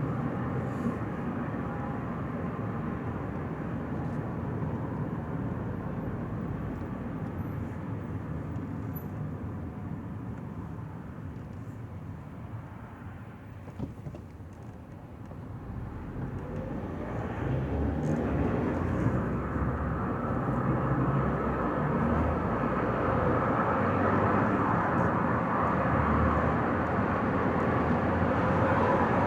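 Car driving on a highway: steady road and engine noise that dips a little near the middle, then grows louder for the second half.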